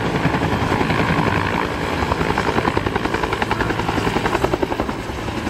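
Huey-type helicopter with a two-bladed main rotor hovering, its rotor beating in a fast, even rhythm over a steady engine rush.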